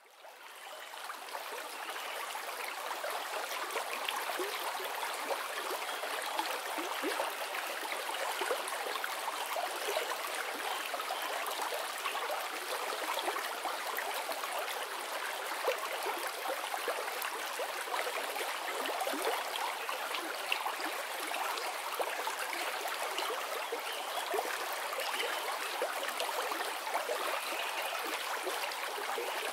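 Steady trickling and splashing of circulating aquarium water, as from a filter's return flow into the tank, fading in over the first couple of seconds.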